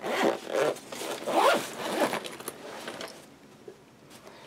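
Zipper of a FreeGrace fabric toiletry bag being zipped shut in several quick pulls over the first two and a half seconds.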